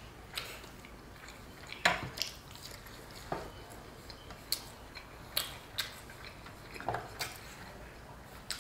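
Eating sounds: about ten short, scattered clicks and smacks of fingers picking food off a stainless steel tray, with chewing.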